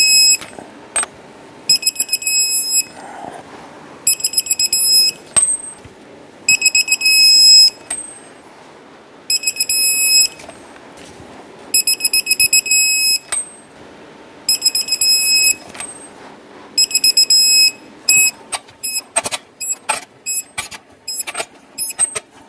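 Digital torque wrench beeping each time a lug nut reaches the set torque of 148 ft-lb. There are seven pulsing, high-pitched beeps, one roughly every two and a half seconds, then a quick run of irregular clicks near the end.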